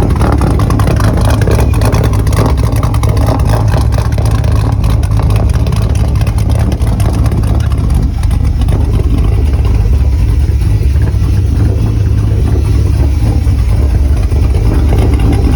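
A Chevrolet 5.3-litre fuel-injected LS V8 swapped into a 1976 Volvo 242, running with a deep, steady exhaust note. The engine note climbs slightly about halfway through.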